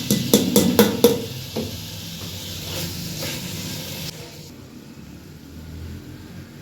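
Minced meat (keema) sizzling in a pan with about five quick knocks of a utensil against the pan in the first second or so. The sizzling cuts off suddenly about four seconds in, leaving a faint low hum.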